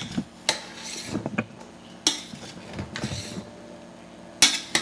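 A utensil stirring buttermilk-coated vegetables in a metal stock pot, knocking sharply against the pot three times with softer scraping and mixing in between.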